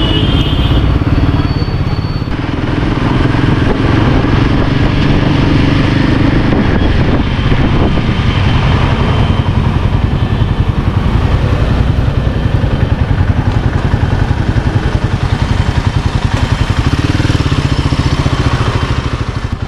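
Royal Enfield Himalayan 450's single-cylinder engine running as the motorcycle is ridden in traffic: a rapid, even pulse under a constant rush of noise.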